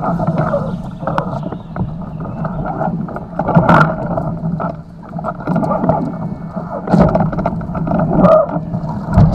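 Muffled rush of wind and water on a Nacra 500 beach catamaran under sail, with irregular knocks and thumps a few seconds apart.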